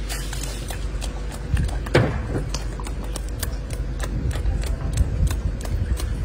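Golden snub-nosed monkey chewing and crunching food: a run of crisp, irregular clicks, with one louder crunch about two seconds in, over a steady low rumble.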